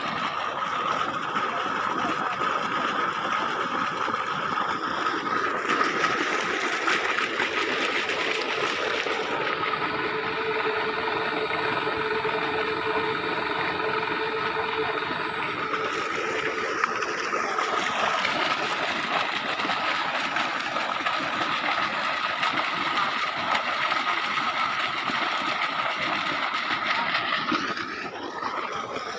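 A 7.5 HP electric monoblock water pump running steadily, with water gushing out of its 5-inch delivery pipe. A steady high whine sits over the rush of motor and water, which eases slightly near the end.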